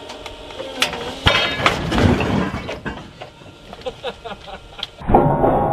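A run of sharp clicks and knocks, with a louder clatter and rumble about a second and a half in; music begins near the end.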